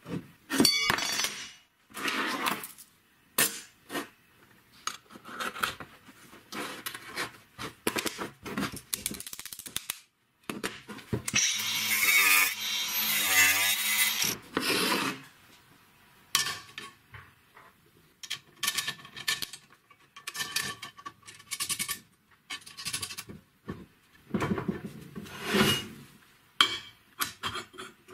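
Steel parts being handled, scraped and knocked on a wooden bench in a series of short clatters and rubs. About ten seconds in, an angle grinder runs against steel for about four seconds, the loudest sound here.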